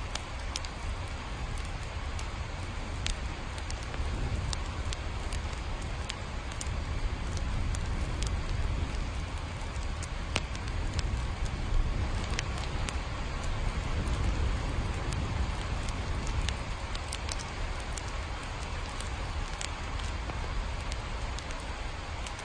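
Steady rain with scattered sharp drip ticks, over a deep low rumble that swells a little midway.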